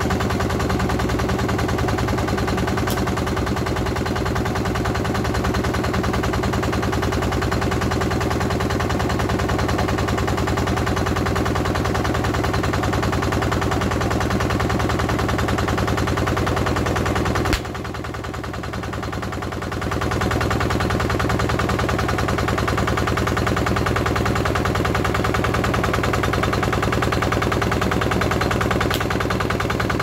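Road roller's engine running steadily as the steel drum creeps forward over water balloons. About 17 seconds in, a sharp click is followed by a couple of seconds where the sound drops quieter before the engine sound returns at full level.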